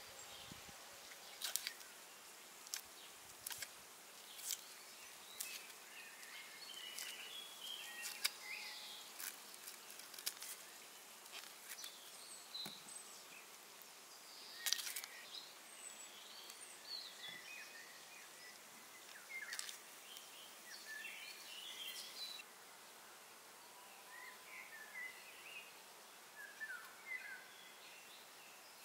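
Irregular sharp clicks and taps from hand work, scattered over the first three quarters and stopping about 22 seconds in, with small bird chirps throughout.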